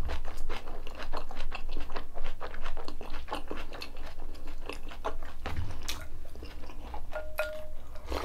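Close-miked chewing of a mouthful of kimchi and rice: a steady run of crisp, wet crunches. A short ringing clink sounds near the end as the bowl is lifted.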